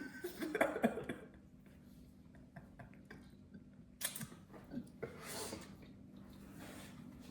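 Faint kitchen handling noises: a few light knocks and clinks in the first second, then a couple of brief rustles over a low steady hum.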